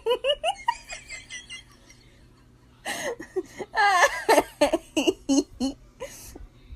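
Giggling laughter in quick bursts, which stops for about a second and a half and then resumes.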